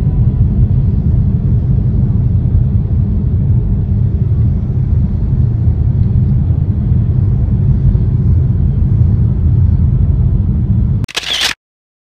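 Steady low rumble of road and engine noise inside a moving vehicle's cabin, cutting off suddenly after a short burst of noise near the end.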